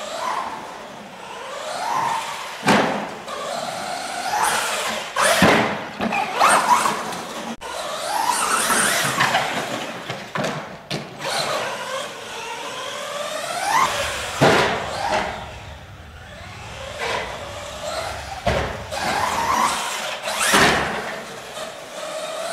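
Electric RC short course truck with a brushless motor, whining up and down in pitch as the throttle is worked, with several sharp knocks as the truck hits bumps and the track surface.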